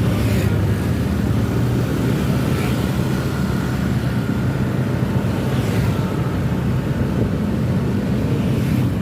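A tour bus engine running steadily with a loud, even low hum.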